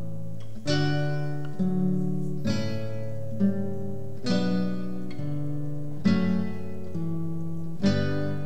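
Background music: an acoustic guitar playing plucked chords, a new chord struck about once a second.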